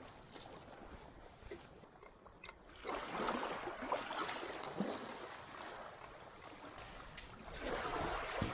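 Water sloshing and splashing in two swells, with a few sharp knocks near the end.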